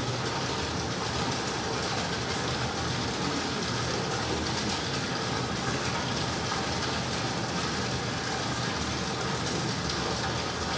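Steady low mechanical hum under an even hiss, unchanging throughout.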